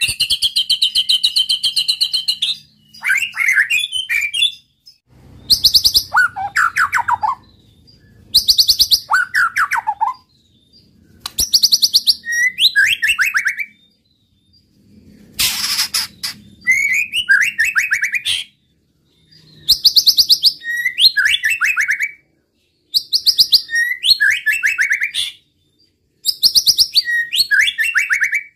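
White-rumped shama (murai batu) singing in loud, repeated phrases every two to three seconds, each opening with a fast run of very high sharp notes and dropping into lower, falling warbles. The first phrase is a steady high trill lasting about two seconds.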